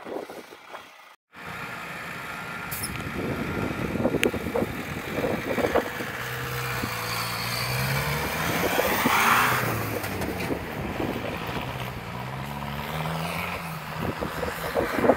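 Cummins R2.8 four-cylinder turbo-diesel in an early Ford Bronco, revving up and down as the truck drives and churns through deep snow. Tyre and snow noise runs under the engine. The sound breaks off briefly about a second in.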